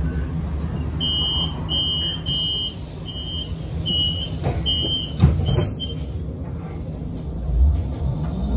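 Solaris Urbino 18 electric bus's door warning beeper sounding about eight short high beeps over five seconds, with a thump about five seconds in, over the bus's low hum. Near the end the electric drive motor's whine starts rising as the bus moves off.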